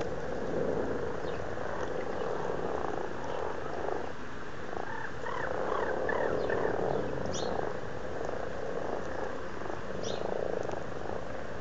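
Common frogs calling in chorus at breeding time: steady, overlapping low purring croaks, the males' mating call, with a flurry of quicker rising notes about halfway through.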